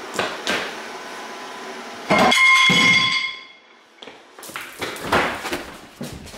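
Footsteps and knocks on a tile floor. About two seconds in there is one loud sharp strike that rings on with clear tones for about a second and fades away.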